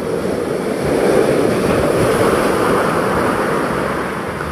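Surf washing in around the angler: a rush of foaming seawater that swells about a second in and eases off near the end.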